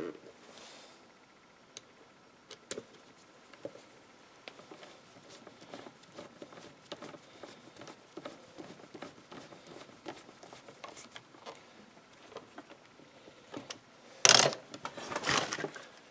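Small clicks and light rattles of a screwdriver turning a screw into a Husqvarna Rancher 455 chainsaw's housing. Louder knocks and clatter come about 14 seconds in as the saw is shifted on the bench.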